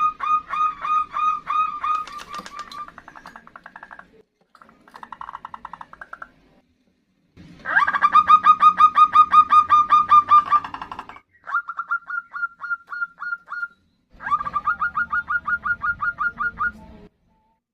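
Female zebra doves (perkutut) giving the rapid 'nutut' call: quick runs of short repeated notes at about four a second. There are five separate runs, with the loudest near the middle. These are calls used to lure male zebra doves.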